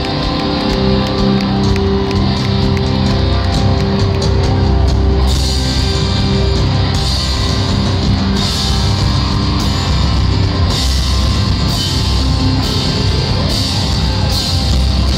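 Rock band playing live, with a full drum kit and electric guitar. Cymbal crashes come about once a second from about five seconds in.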